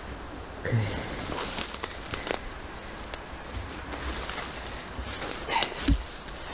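Twigs snapping underfoot on a forest floor: a few sharp cracks spread out, the loudest near the end with a low thump. A person gives a short grunt about a second in.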